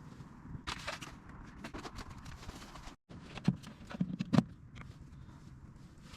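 Scattered knocks and clatter of hard objects being handled, with a few louder sharp knocks a little past halfway.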